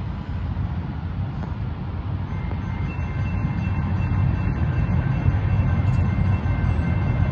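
Railroad crossing's electronic warning bells start up about two to three seconds in, several steady overlapping tones as the crossing activates. Underneath, a low rumble grows steadily louder.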